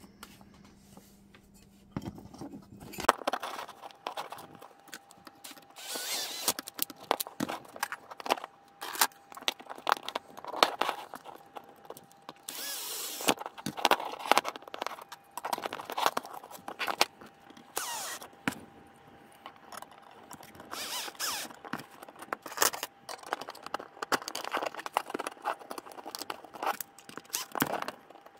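Hands fitting the 3D-printed plastic parts and steel plates of a model excavator bucket together: a run of light clicks, taps and rattles, with a few short scraping rustles. The first few seconds are quieter.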